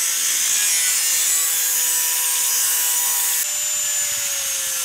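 Angle grinder cutting into the steel shell of a heating expansion vessel: a steady hissing grind over a thin whine that shifts and sags slightly in pitch about three and a half seconds in.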